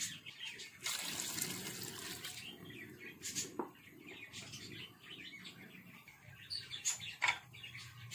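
Liquid sloshing and bubbling as a steel ladle stirs a pot of simmering meat curry, with a hissy stretch about a second in. Short bird chirps or light clinks come through now and then, the sharpest around three and a half seconds and near the end.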